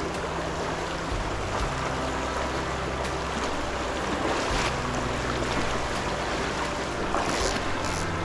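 Steady rush of a fast-flowing trout stream running over rapids, with a couple of brief louder surges about halfway through and near the end.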